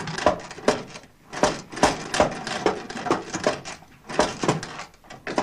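La Populaire, a French hand-pushed sewing machine, worked by pushing down on it, clacking in a run of sharp mechanical clicks, about two to three a second with brief pauses.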